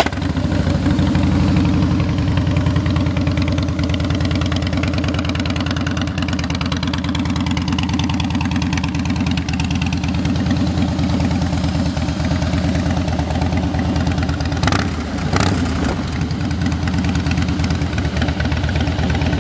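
Harley-Davidson Night Train's fuel-injected 96-cubic-inch V-twin idling steadily through Vance & Hines slash-cut exhaust pipes, with two brief sharp sounds about fifteen seconds in.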